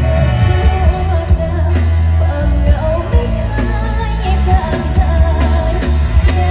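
Live mor lam band music played loud through a PA: a voice singing a wavering melody over heavy bass and a steady drum beat.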